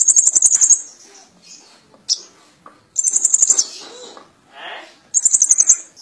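Caged male sunbird ('kolibri ninja') singing: three rapid, high-pitched trills, each under a second long, at the start, about three seconds in, and near the end, with a single sharp chirp between the first two.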